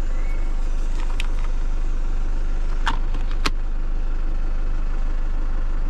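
Vehicle engine idling steadily, with two sharp clicks close together about three seconds in as a coffee pod is loaded into a Bosch Tassimo coffee machine.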